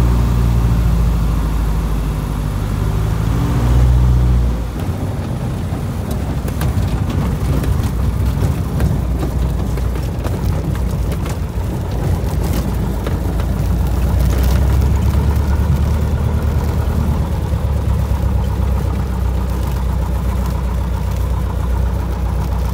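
Light single-engine bush plane's piston engine heard inside the cabin, running steadily and then easing off about four and a half seconds in. After that the engine runs low under a rumble and many short knocks and rattles from the airframe rolling over rough grass and gravel.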